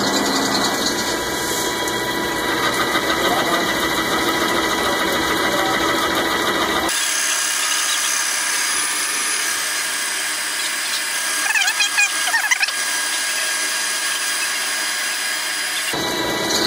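Metal lathe facing off the end of a steel bar, the cutting tool working under flood coolant: a steady machine whine with several fixed high tones. Around twelve seconds in, a brief wavering squeal.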